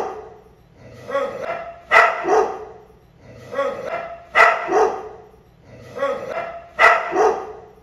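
Dog barking in three bouts of a few barks each, evenly spaced about every two and a half seconds, each bout ending in a sharp, loud bark.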